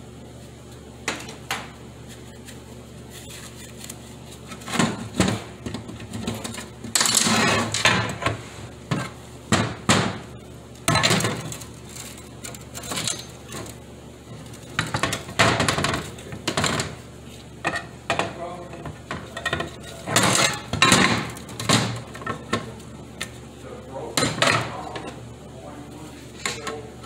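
Metal parts of a 4T40E automatic transmission clinking and clattering as they are handled and pulled apart by hand on a workbench: irregular knocks and clanks of small steel and aluminium pieces, some ringing briefly.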